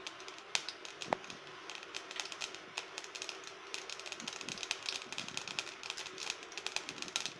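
Mustard seeds popping and crackling in hot oil in a kadai: a rapid stream of sharp little clicks, scattered at first and much denser from about two seconds in. The popping is the sign that the oil is hot enough for tempering.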